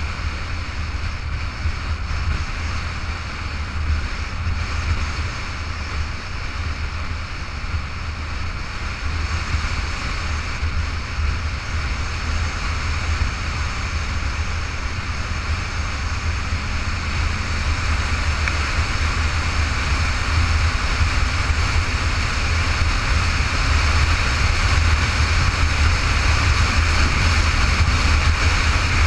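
Motorcycle riding at road speed, heard from a camera on the bike: a steady rush of wind noise over a low rumble, growing louder over the last ten seconds or so.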